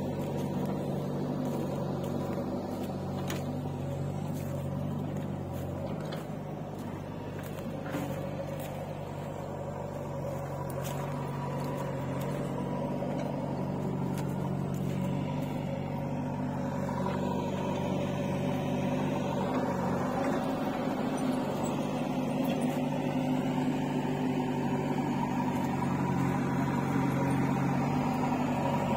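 Tractor diesel engine idling steadily, with a slight change in its hum about two thirds of the way through.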